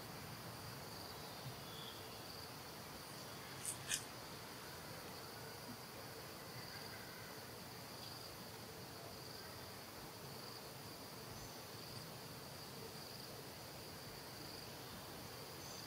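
Faint, steady high-pitched insect chirring in the background, with two quick sharp clicks close together about four seconds in.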